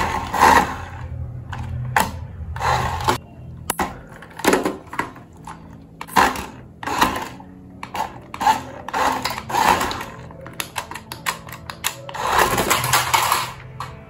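Toy RC car's small electric drive motor whirring in repeated short bursts of about half a second to a second as the throttle is pressed and released, with clicks and knocks in between.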